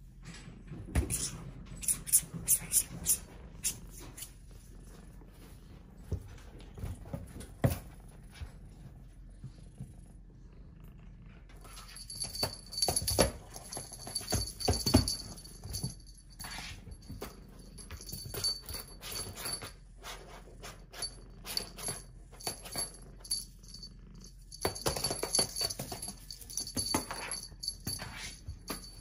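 Irregular soft taps, bumps and rustles of a Persian kitten pouncing on and batting a wand toy across a smooth surface, in scattered clusters. A thin steady high tone comes in about twelve seconds in.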